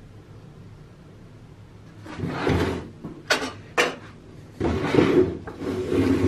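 Things being moved about on a wooden tabletop. First a scrape, then two sharp knocks about half a second apart, then a longer scraping as a plastic tub is set down and pushed across the wood.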